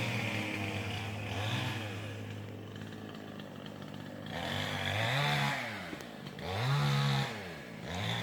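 Chainsaw engine revved up and let back down to idle several times, its pitch rising and falling with each squeeze of the throttle, as when cutting.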